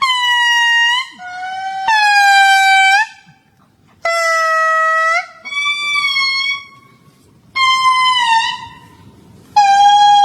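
A series of about seven loud, horn-like animal calls, each about a second long. Each call starts suddenly, holds one pitch and bends a little at its end.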